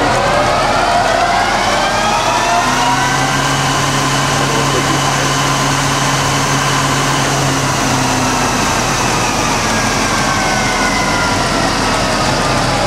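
1966 LeBlond 1610 Servo Shift heavy-duty engine lathe running its spindle up into the upper speed range. The headstock gear whine rises in pitch for the first few seconds, holds steady with a low hum under it, then falls slowly over the last few seconds as the spindle slows.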